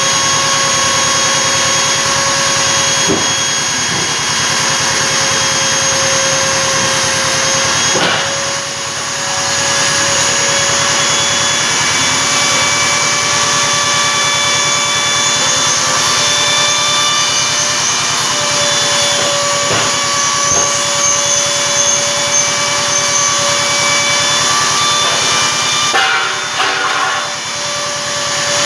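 CNC router spindle, a router motor fitted with a 6 mm end mill, running with a steady whine as it cuts 3 mm acrylic sheet. The sound dips briefly about eight seconds in and again near the end.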